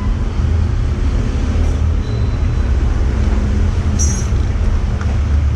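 Steady low rumble of background noise, with one short, bright metallic clink about four seconds in.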